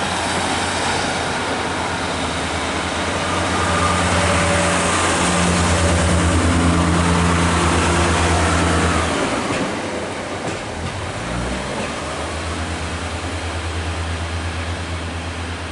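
Underfloor diesel engines of diesel multiple-unit passenger trains running as the trains move through the station: a loud, steady, low engine drone, strongest over the first nine seconds. It drops and shifts about nine to eleven seconds in, then settles steady again.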